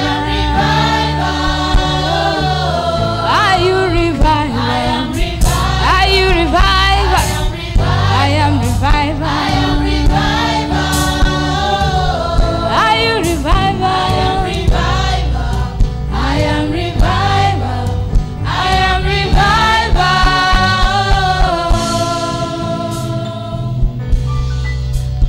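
Choir singing a gospel song with a band accompaniment: several voices over a steady bass line and drum hits.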